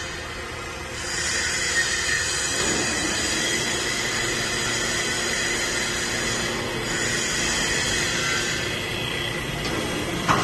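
CNC wood lathe running and cutting a turning wooden blank, a steady mechanical noise with a high-pitched whine. It grows louder about a second in and ends with a sharp click.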